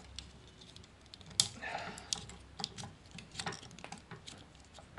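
Irregular light plastic clicks and taps as the cannon accessory of a Takara Masterpiece MP-36 Megatron figure is handled and pushed against the figure's forearm mount, with one sharper click about a second and a half in. The cannon is not seating easily.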